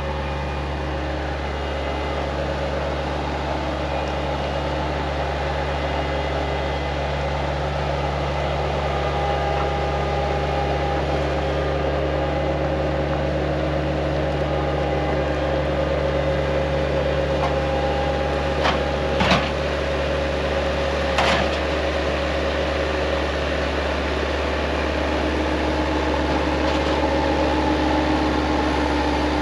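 A machine running steadily with a low hum and a few held tones. Two or three sharp clicks come a little past the middle.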